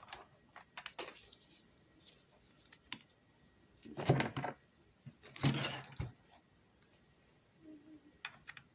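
Plastic protective tablet case and its strap being handled and clipped together: scattered small clicks and taps, with two brief rustling scrapes about four and five and a half seconds in.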